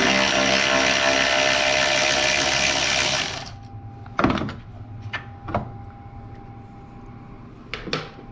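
A power tool spinning a 10 mm bolt loose for about three and a half seconds, a steady motor-and-gear whine, then a few short clicks and clinks as the loosened parts are handled.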